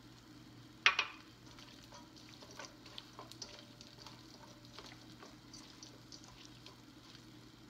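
A utensil stirring and tossing a marinated onion escabeche in a stainless steel mixing bowl, with scattered light clicks and scrapes against the metal. There is one sharp clink about a second in.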